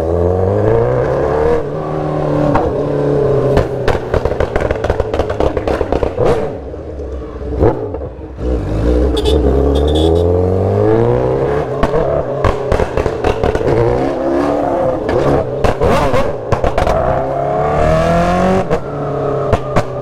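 Honda sport motorcycle with a loud exhaust, revving up through the gears and easing off several times, its pitch climbing and dropping with each pull, with sharp pops and crackles from the exhaust between pulls.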